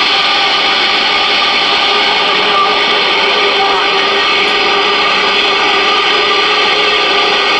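Galaxy DX-979F radio's speaker on receive: a loud, steady wash of band static and skip noise with faint whistling heterodyne tones, coming on abruptly right after a call and holding level.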